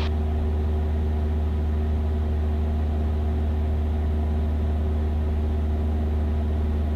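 Cessna 172's piston engine and propeller droning steadily in cruise flight, heard from inside the cabin: an even, unchanging low hum with a few steady tones above it.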